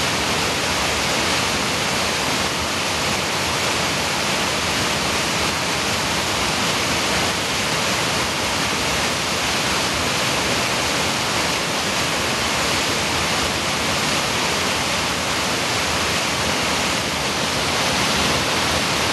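Creek waterfall cascading over rocks: a loud, steady, unbroken rush of white water.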